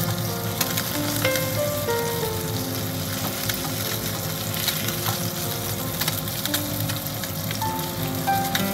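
Mirin-marinated Greenland halibut fillets sizzling and crackling in oil in a nonstick frying pan, with occasional clicks as metal tongs handle the pieces.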